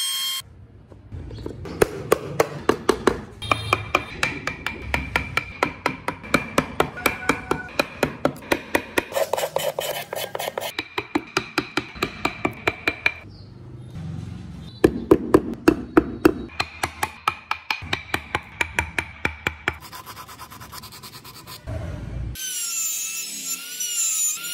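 A mallet tapping a carving chisel into solid wood in a rapid, even rhythm of about three strikes a second, each with a slight metallic ring, paused briefly twice. Near the end a handheld trim router starts up with a whine that wavers in pitch.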